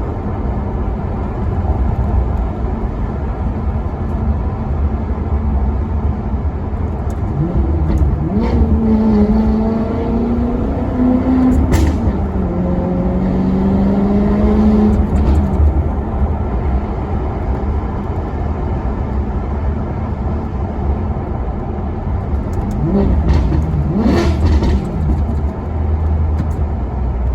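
Maserati Quattroporte Sport GT's V8 engine driving under a constant deep rumble. There is a longer spell of revving with rising, stepping pitch in the middle and a brief rev rise near the end, each with a few short sharp cracks.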